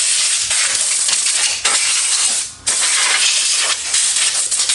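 Compressed-air blow gun hissing as it blasts brake dust out of a ute's exposed front brake, in two long blasts with a short break about two and a half seconds in.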